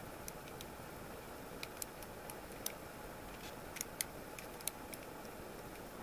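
Small, irregular metallic clicks of a lock pick and tension wrench working the spool pins of a six-pin Union oval cylinder during single-pin picking, over a steady faint hiss.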